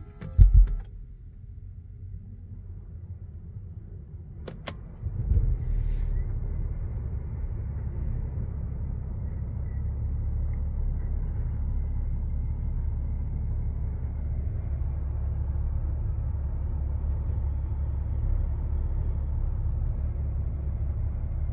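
A heavy thump under a second in, then a few clicks, and about five seconds in the Mercedes R320 CDI's 3.0-litre V6 diesel starts and settles into a steady low idle.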